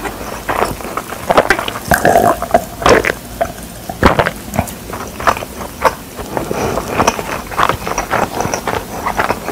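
Close-miked wet chewing and lip smacks from a mouthful of pizza, with gulps of cola from a plastic cup about halfway through. The sound is an irregular run of smacks and clicks.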